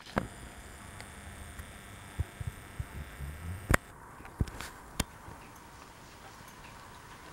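Kenmore ceiling fan running on low speed, a faint steady hum, with a few scattered sharp clicks and knocks, the loudest about halfway through.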